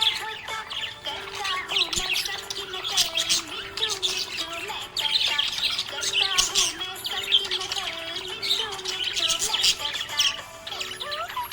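Budgerigars chirping and twittering rapidly and without pause, over background music with a held melody.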